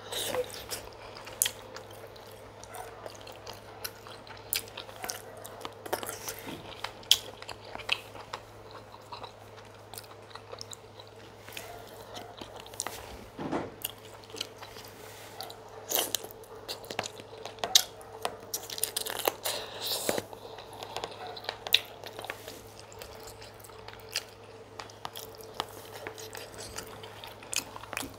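A person eating chicken pepper soup and fufu close to the microphone: irregular chewing, biting and wet mouth clicks, over a steady low hum.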